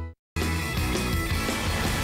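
TV show theme music over the programme's logo bumper: one music cue fades out quickly, a brief moment of silence, then another upbeat cue starts suddenly.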